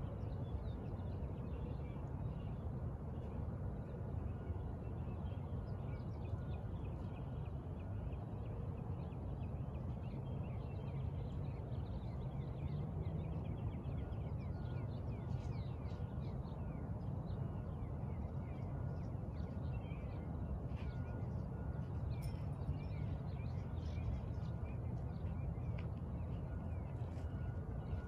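Outdoor birds calling in short repeated calls, busier in the second half, over a steady low rumble.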